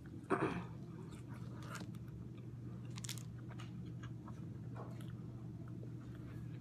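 Close-miked eating: a loud bite about half a second in, then quiet chewing with a few small clicks, over a steady low hum. The food is most likely a Burger King Cini-Mini cinnamon roll.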